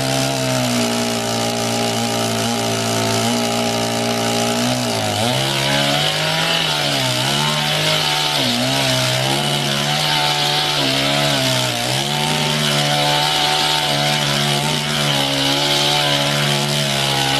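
Two-stroke petrol chainsaw running at high revs. From about five seconds in, its pitch sags again and again as the chain bites into a log, over a steady hiss of cutting. It cuts off suddenly at the end.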